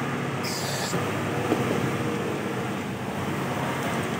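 Steady background rumble and hiss of vehicle noise, with a short high hiss about half a second in.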